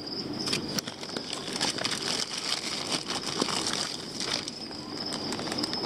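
Plastic box liner and crumpled newspaper packing crinkling and rustling as hands rummage through a shipping box, with irregular small crackles.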